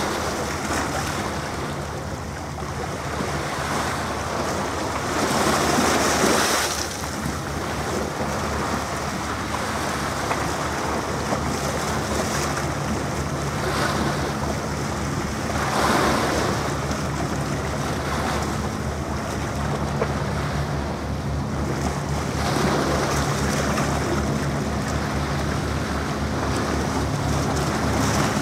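Sea washing and wind buffeting the microphone, with two louder surges about six and sixteen seconds in. Under it runs a steady low drone from an approaching passenger hovercraft's engines and propellers, a little stronger near the end.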